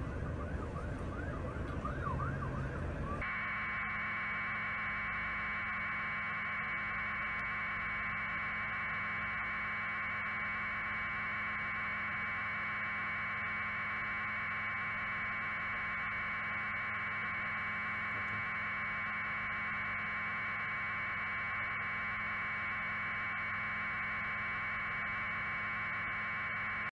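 Steady, even static hiss with a faint low hum under it, unchanging until it cuts off suddenly at the end. It is preceded by about three seconds of a different outdoor recording with a few faint rising and falling chirps.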